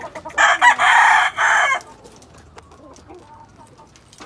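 A gamefowl rooster giving one loud, harsh call lasting about a second and a half, starting about half a second in, as it is grabbed in its pen.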